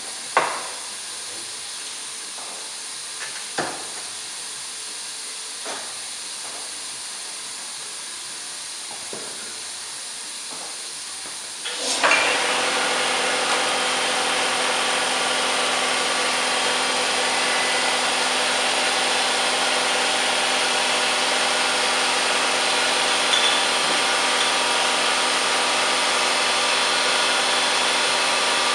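Small two-bottle beer filling machine: a few knocks and clicks from bottles being seated and the machine's buttons over a faint hiss, then about twelve seconds in a sudden loud, steady rushing hiss as beer runs into the bottles.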